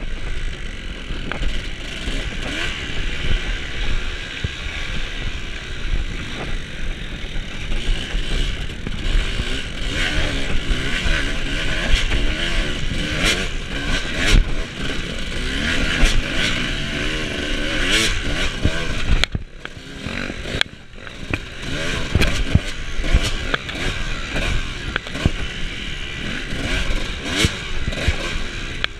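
Off-road motorcycle engine revving up and down over and over as it is ridden, with clattering knocks mixed in; the engine note drops away briefly about twenty seconds in before picking up again.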